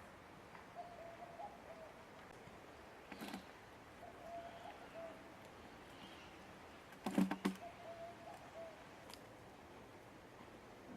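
A dove cooing three times, each a short low phrase of about a second, a few seconds apart. Sharp knocks come about three seconds in and a louder cluster of them about seven seconds in.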